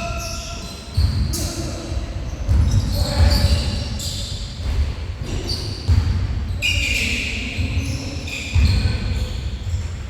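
Basketball dribbling on a gym floor, a run of low bounces echoing in a large hall, with short high squeaks from time to time.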